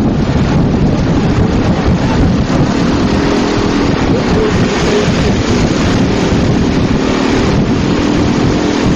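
Steady wind and road noise from a vehicle moving at speed, with wind buffeting the microphone and an engine hum that comes through more clearly from about three seconds in.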